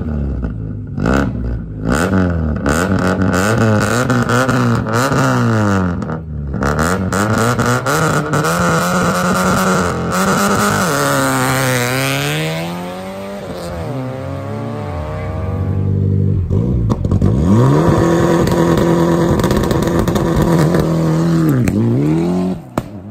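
Rally car engine revving hard and shifting up through the gears, its pitch climbing and dropping again and again, with sharp cracks in among it. It holds high revs for several seconds near the end, then the sound falls away suddenly.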